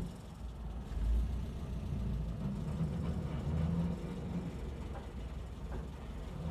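In-cab noise of a 1976 Land Rover Series 3's 2.25-litre four-cylinder petrol engine pulling on the road through a newly fitted exhaust: a steady low drone that grows louder about a second in. With the holed exhaust and the blowing manifold joint replaced, it is more of an engine purr than an exhaust roar.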